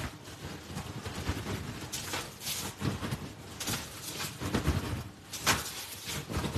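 A plastic oven bag of raw shrimp and other seafood in melted butter and seasoning being shaken by hand. The plastic crinkles and the contents slosh and thud irregularly, loudest about two and a half and five and a half seconds in.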